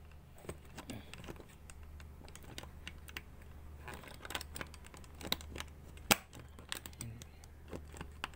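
Irregular clicks and rattles from a trolley suitcase's built-in combination lock and its metal zipper pulls, handled as the pulls are pushed into the lock to latch it. The sharpest click comes about six seconds in.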